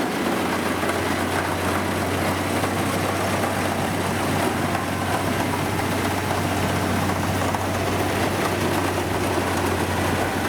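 Engine of rice harvesting machinery running steadily: a constant low hum under a dense mechanical din.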